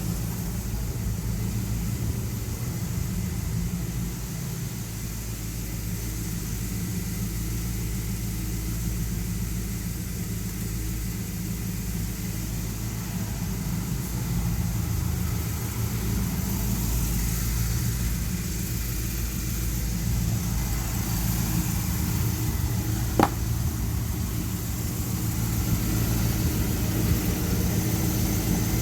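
1973 Dodge D100 pickup's engine idling steadily, with one sharp click about 23 seconds in.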